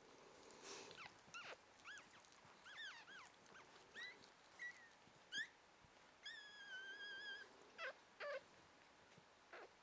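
Newborn puppies squeaking and whimpering: a string of short high-pitched cries, with one longer wavering cry about six seconds in.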